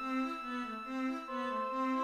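Chamber music for flute, oboe, viola and cello: the winds hold long notes while the viola and cello play short repeated notes underneath. The held high note moves to a new pitch about a second in.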